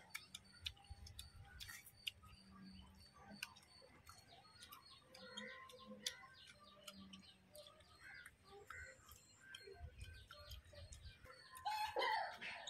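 Faint birds chirping off and on, with soft clicks and smacks of eating rice by hand and chewing. There is a brief louder sound near the end.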